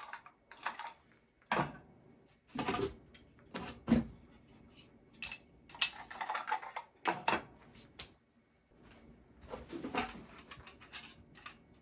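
Used fire alarm devices being handled and set down: an irregular run of plastic clicks, knocks and rustling, with the sharpest knock about four seconds in.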